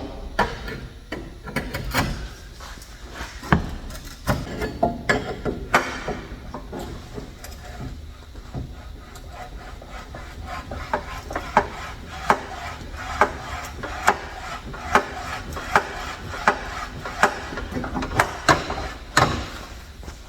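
Exhaust pipes being worked onto an H-pipe, with scraping and irregular knocks, then a run of sharp knocks about one a second in the second half.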